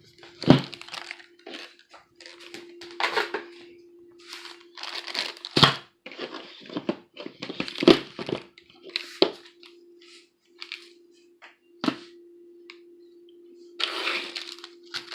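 Plastic packaging and parts of a car amplifier wiring kit being handled: irregular crinkling and crackling with sharp clicks and knocks, over a faint steady hum.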